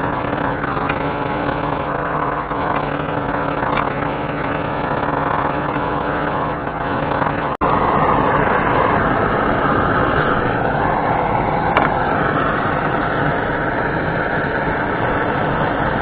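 Gas blowtorch flame burning with a steady rushing noise while scorching the wooden door-stop birds, broken by a momentary cut about halfway through.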